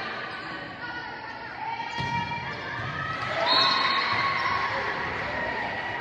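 Volleyball rally in an echoing gym: a sharp hit of the ball about two seconds in, with players and spectators shouting and calling, loudest a little past halfway.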